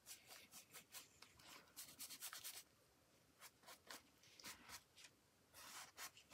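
A paintbrush brushing and scratching across paper in short, irregular strokes, faint, with a longer rasp near the end.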